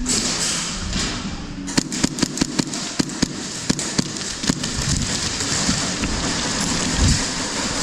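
Airsoft guns firing during a game: a quick, uneven string of about a dozen sharp shots starting about two seconds in and lasting around three seconds, over a steady hiss.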